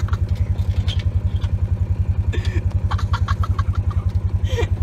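Side-by-side utility vehicle's engine running at a steady idle, an even low throb of about twelve pulses a second.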